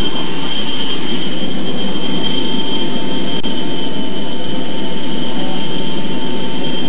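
Jet aircraft turbines running on the apron: a steady loud rush with high, steady whining tones over it.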